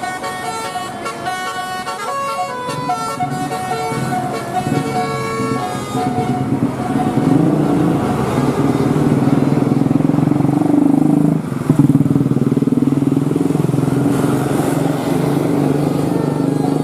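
A bus's telolet basuri musical air horn playing a quick melody of stepped notes. About six seconds in, an engine takes over and grows louder, running steadily to the end.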